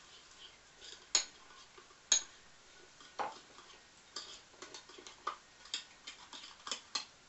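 A metal spoon clinking and scraping against a ceramic bowl while mixing butter and breadcrumbs: two sharp clinks about a second apart, then a run of quicker, irregular clicks.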